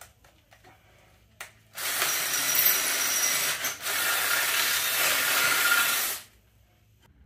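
Cordless drill boring through the steel bracket of a transmission crossmember held in a vise, starting about two seconds in and running for about four and a half seconds with a brief break in the middle. The bit is worn dull.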